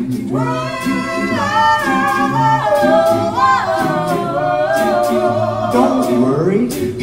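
A cappella vocal group singing in harmony: a lead voice holds and slides between long notes over lower backing voices, with a steady beat.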